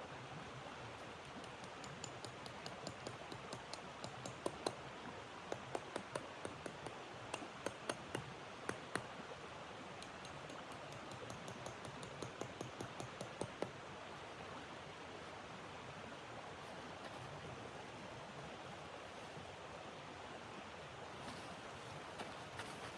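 Wood fire crackling with sharp, irregular pops over a steady rushing noise. The crackles come thick for the first half and die away about halfway through, leaving only the steady rush.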